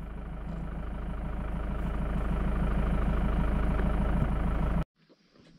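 A vehicle engine running steadily with an even low pulse, slowly growing louder, then cut off abruptly near the end.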